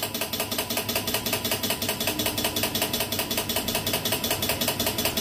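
DC short-remover power supply making a fast, even clicking buzz, about ten clicks a second, while it drives current into the shorted VGL line of an LCD TV panel to burn out the short.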